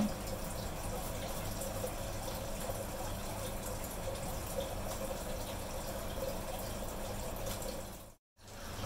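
Water running steadily into a container, cutting off suddenly near the end.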